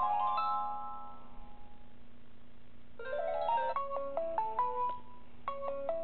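Samsung Galaxy Core Prime stock ringtones previewing through the phone's speaker. A rising run of clear notes fades out in the first second or so. About three seconds in, another tone starts with a rising run and a short melody, breaks off abruptly, and a new one begins near the end.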